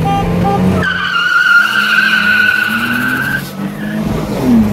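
Car accelerating hard from a launch, with tyres squealing steadily for about two and a half seconds under the rising engine note. After a short dip the engine revs climb again near the end, as after a gear change.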